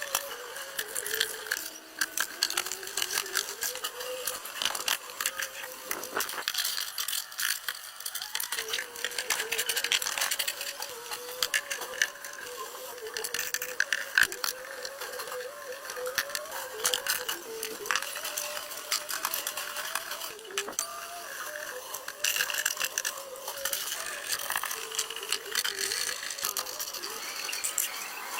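Rapid, irregular metallic clicking and rattling of tools and parts being worked by hand, with a faint wavering tone underneath.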